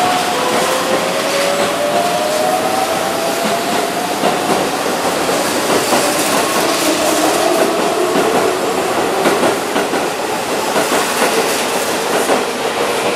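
Keihan 9000-series electric train, set 9001, pulling out along a station platform: the VVVF inverter whine of its traction motors climbs in pitch as it gathers speed, over steady running noise and wheels clicking over the rail joints.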